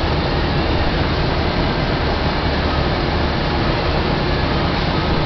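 Hobart 140-quart floor mixer running, its motor and gear drive turning the dough hook in the steel bowl with a steady, loud mechanical hum.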